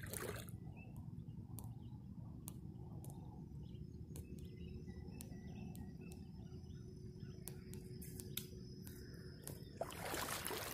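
Quiet lakeside ambience: faint bird chirps and a thin steady high tone over a low rumble, with scattered sharp clicks and a louder rush of noise near the end.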